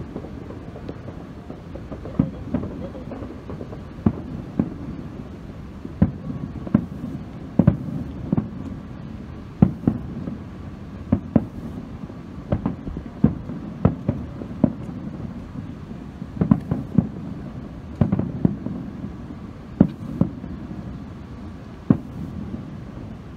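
Aerial fireworks shells bursting: an irregular string of sharp bangs, some in quick clusters, over a steady low rumble.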